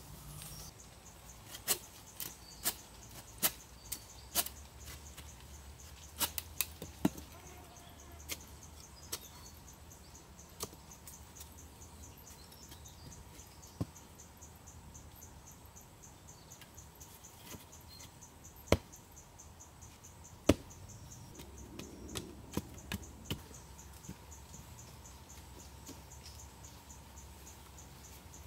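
Insects chirping steadily in the forest, with scattered sharp knocks and taps from wooden poles and hand tools being handled during digging work; the knocks come in a quick run early on and two loud ones past the middle.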